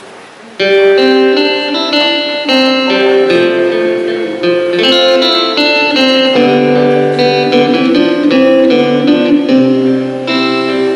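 Instrumental intro of a gospel song on a recorded backing track, with guitar and piano. It starts abruptly about half a second in.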